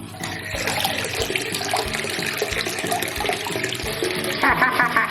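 Water running and gushing steadily over background music with a steady beat. Near the end there is a short warbling, squeaky sound.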